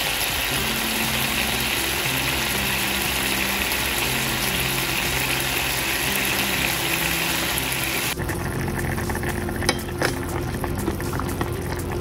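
Pork belly sizzling in hot oil and soy sauce in a frying pan, a dense steady hiss. About eight seconds in it switches to the pork braising in a pot: liquid bubbling, with a couple of sharp clicks as chopsticks stir against the pot.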